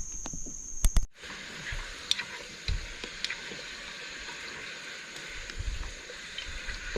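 Food sizzling in a frying pan: a steady hiss with scattered small crackles, starting just after a brief cut about a second in. Crickets trill steadily during the first second.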